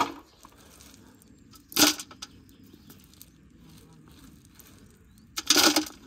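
Stones thrown into a galvanized metal bucket: one clatter about two seconds in, then a longer rattle of several stones landing near the end.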